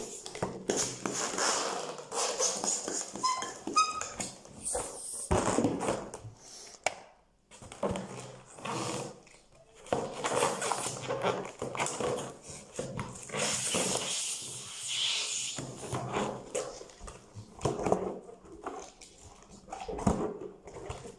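Inflated latex balloons squeaking and rubbing under the hands as they are twisted, knotted and pressed together. About three seconds in there is a short run of high squeaks.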